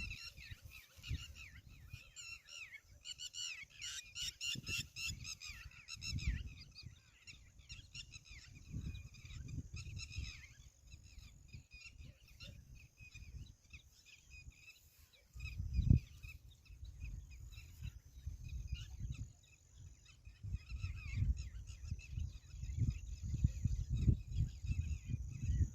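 A flock of waterfowl calling in a dense, overlapping chorus, busiest in the first ten seconds and thinning after. Low rumbles and bumps come and go on the microphone, the strongest about sixteen seconds in and again near the end.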